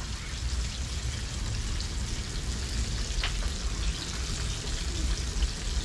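Flour-battered butterfish fillets deep-frying in a pan of hot oil, a steady sizzle with a low rumble underneath.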